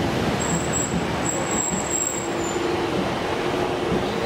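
A Class 150 diesel multiple unit running past as it leaves, its underfloor diesel engines giving a steady noise. A thin high whine is heard for about a second and a half, starting about half a second in.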